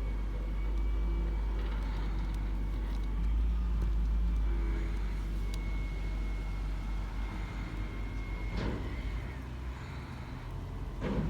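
Peterbilt 320 garbage truck running, a heavy steady low rumble with a thin high whine over it. A brief burst of noise comes about three-quarters of the way through.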